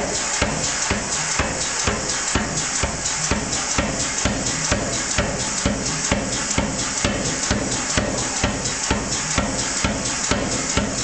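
Power hammer fitted with special dies striking a 3/4-inch round steel bar to forge it into a grape shape, in a steady run of blows at about two a second.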